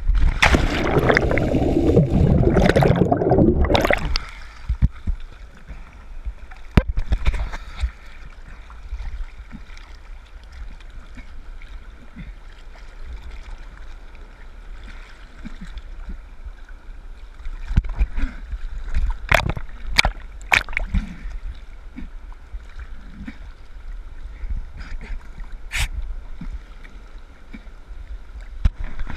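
A loud rush of splashing and bubbling for about four seconds as a diver enters the sea, then water sloshing and gurgling at the surface, heard through a GoPro Hero3's waterproof housing, with a few sharp clicks.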